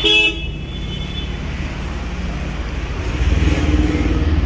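A single short vehicle horn toot, lasting about a third of a second, right at the start, over steady road traffic rumble. About three seconds in, a vehicle's engine rumble grows louder.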